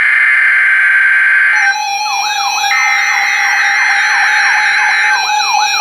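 NOAA Weather Radio SAME alert header: a harsh, buzzing data burst of steady high tones that breaks off about 1.7 s in and repeats after a pause of about a second, marking the start of a Tornado Watch alert. From about 1.7 s a weather radio receiver's siren alarm sounds over it: a steady tone with a rapid, repeating sweeping wail, set off by the alert.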